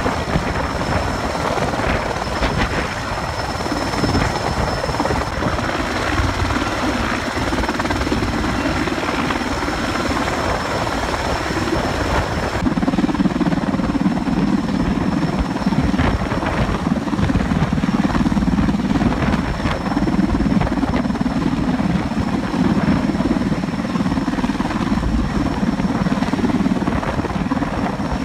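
Sikorsky S-64 Skycrane heavy-lift helicopter hovering low with a long-line sling, its twin turbines and big main rotor running steadily. A thin high turbine whine holds throughout; about halfway through, the low rotor sound grows louder and the upper hiss drops back.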